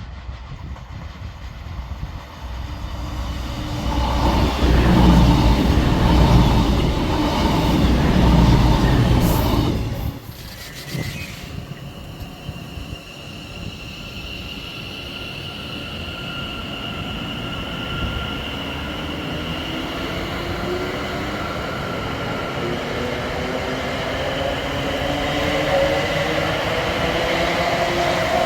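Passenger train running past at the platform, loud and deep for several seconds before cutting off suddenly. Then a train's motors whine with several tones rising slowly in pitch as it picks up speed.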